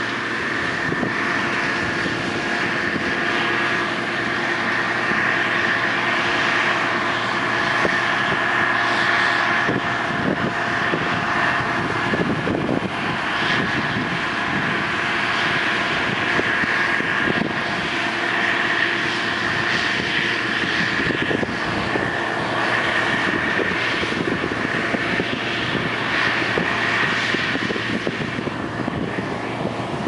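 Case IH 2188 Axial-Flow combine harvesting soybeans: its diesel engine and threshing machinery running steadily under load, with a steady high whine over the engine.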